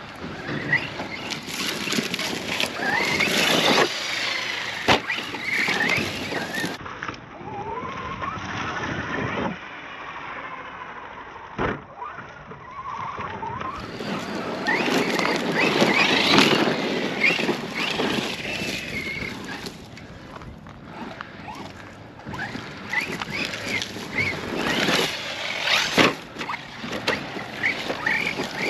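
Arrma Outcast 4S brushless RC truck driving over rough dirt and rocks, its electric motor whining up and down in pitch as it speeds up and slows, with tyre and gravel noise. A few sharp knocks as the truck hits rocks.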